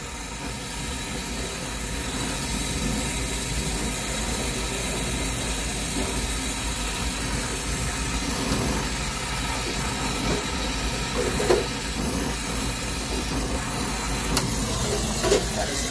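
Oxy-fuel brazing torch flame hissing steadily as it heats a copper refrigerant line joint at an expansion valve, with a couple of brief knocks near the end.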